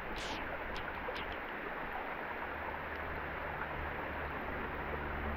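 Steady hiss of heavy rain falling, mixed with a creek running, with a few sharp ticks in the first second and a half.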